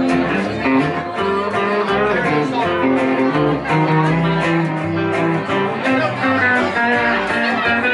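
Live country band playing an instrumental passage with no singing: electric guitar notes over a plucked upright bass line and a second guitar.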